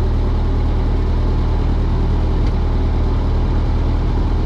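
Ford 8N tractor's four-cylinder flathead engine idling steadily.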